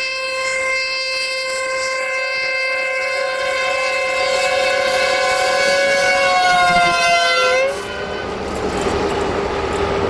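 Air horn of an LDH 1250 diesel-hydraulic locomotive blown in one long blast, a second, higher note joining about two seconds in to make a chord. Near the end the pitch sags and the horn cuts off suddenly, leaving the locomotive's steady running noise.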